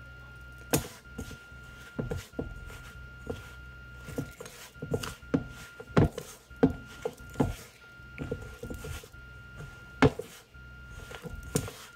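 Hands kneading soft roti dough in a stainless steel bowl on a wooden board, with irregular knocks and squishes as the dough is pressed and the bowl shifts.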